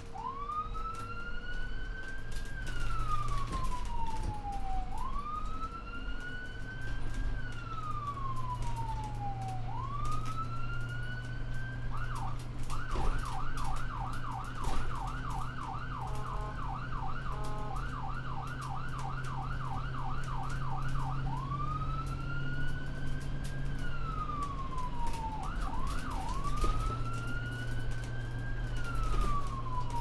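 Ambulance electronic siren on a slow wail, each rise and fall taking about five seconds. About twelve seconds in it switches to a fast yelp of roughly three cycles a second for some nine seconds, then returns to the wail, with a couple of quick yelp chirps shortly before the end. A low steady hum runs underneath.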